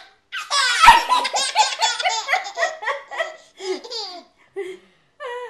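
A baby's belly laugh: a long run of rapid, pitched laughing pulses, several a second, starting just under half a second in and dying away after about four seconds, followed by a couple of short squeals.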